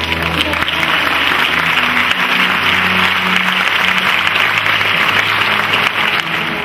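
Audience applauding, breaking out suddenly and stopping after about six and a half seconds, over steady background music.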